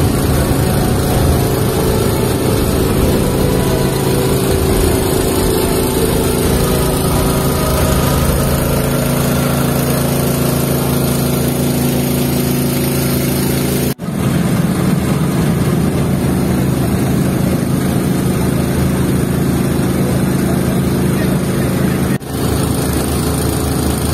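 A boat's engine running steadily on deck, a constant drone with a wash of noise over it. The sound drops out very briefly twice, about halfway through and near the end.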